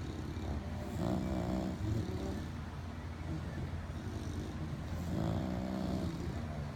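Sleeping bulldogs snoring: a steady low snore throughout, with two louder, longer snores about a second in and about five seconds in.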